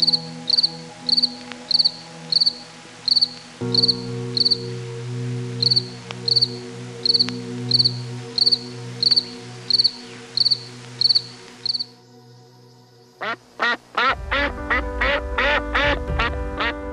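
High, evenly repeated chirps, about two a second, over sustained background music chords. After a short break near the end, a quick run of rising-and-falling animal calls starts.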